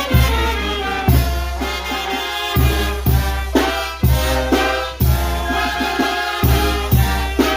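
Mexican brass band (banda de viento) playing live: horns sounding held chords over heavy low drum and bass beats about once a second.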